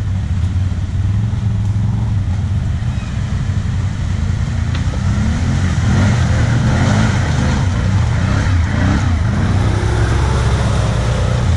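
ATV engines: one runs steadily at idle while another revs up and down over and over as it churns through a muddy water crossing. The revving grows louder from about six seconds in as the machine comes closer.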